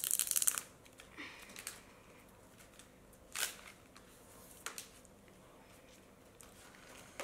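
Thin clear plastic shrink-wrap crinkling as it is torn and peeled off a smartphone box: a dense burst of crinkling at the start, then scattered crinkles and a rustle a few seconds in.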